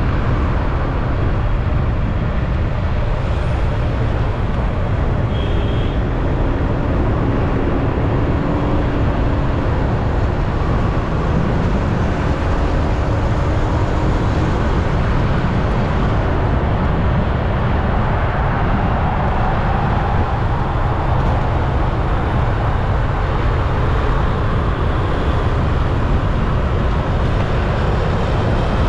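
A motorbike heard while riding: heavy wind rumble on the helmet or bike-mounted microphone over the engine running at road speed, its pitch drifting up and down a little.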